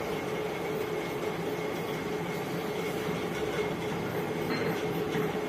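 Steady mechanical drone with a constant low hum, unchanging throughout.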